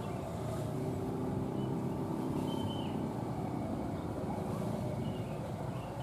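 Motorcycle traffic crossing the railway, with several small engines running and passing close by over a steady low rumble. A few faint high chirps can be heard, which may be birds.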